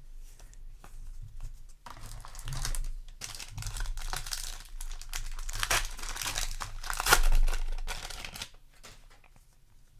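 Trading card booster pack wrapper being torn open and crinkled by hand, a run of crackling and rustling that peaks shortly before the end.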